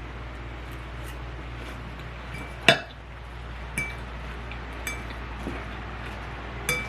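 An eating utensil clinking against a dish, five sharp ringing clinks, the loudest a little under three seconds in.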